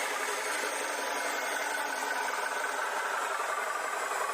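Toy tanker truck running with a steady whirring and rattling from its small motor and gears.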